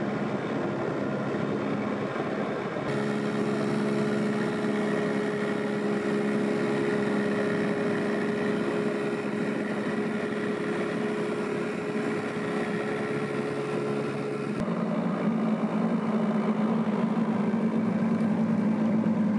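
Small outboard motor on a rowboat running steadily. Its tone changes abruptly about three seconds in and again near fifteen seconds.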